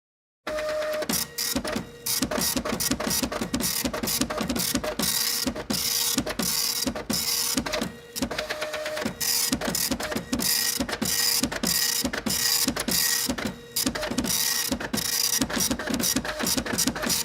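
Printer printing: a steady mechanical hum under rapid, rhythmic strokes of the print mechanism, with a few brief pauses. It starts abruptly about half a second in.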